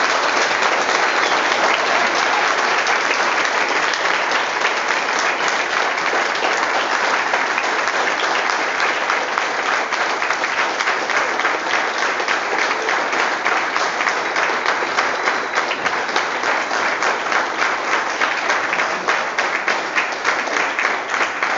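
An audience clapping in sustained applause, a dense patter of many hands that thins a little toward the end into more separate claps.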